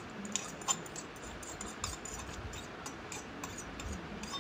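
A few faint, scattered clicks and taps as chopped onion, tomato and green chilli are tipped out of a small steel bowl onto boiled potato in a plastic plate.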